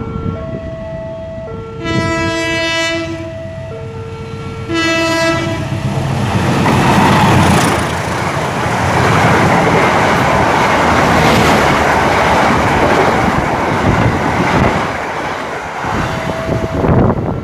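A train horn sounds twice, about a second each, a couple of seconds apart, over an electronic warning alarm alternating between two tones. Then the train passes with a loud, steady rumble and wheel clatter for about ten seconds before it fades, leaving the alarm tones.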